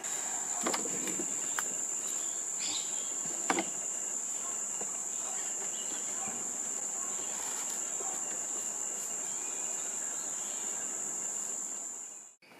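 Insects droning with one steady, high-pitched tone that cuts off sharply near the end, with a few light knocks as the mower is carried up wooden stairs.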